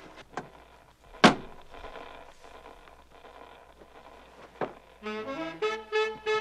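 Several clicks and knocks from a cabinet radio's knob being turned, over a faint background. Then a fast big-band swing tune with brass comes in loud, about five seconds in.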